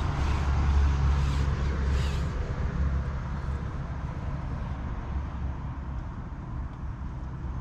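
A low engine rumble that slowly fades.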